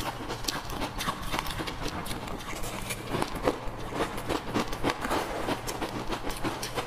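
Close-miked chewing of ice chunks: an irregular run of sharp cracks and crunches, several a second.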